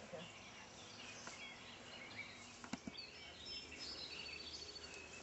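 Faint outdoor ambience of birds chirping and twittering, with two sharp clicks in quick succession about halfway through.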